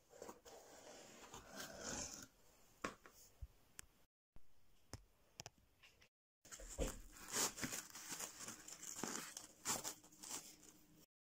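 Faint rustling and crinkling with a few sharp clicks, like something being handled close to the microphone, cut twice by moments of dead silence.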